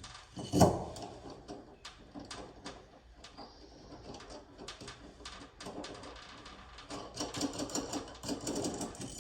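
Nuts and washers being worked onto threaded hanger rods: scattered metal clicks with a sharp knock about half a second in, then a rapid rattling run from about seven seconds in.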